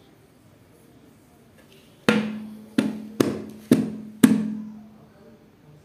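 Five sharp knocks in quick succession, starting about two seconds in, each followed by a low tone that rings on under the next.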